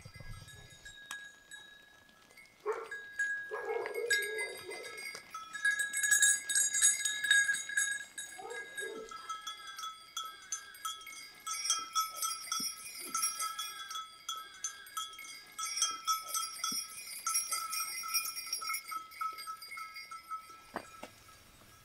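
A flock of sheep on the move, bells ringing and jingling almost throughout, with sheep bleating, the loudest calls between about three and five seconds in and again around nine seconds.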